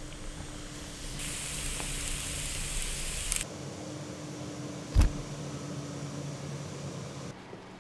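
Workshop sounds: a steady hiss for about two seconds that cuts off abruptly with a click, over a low steady hum, then a single sharp knock about five seconds in.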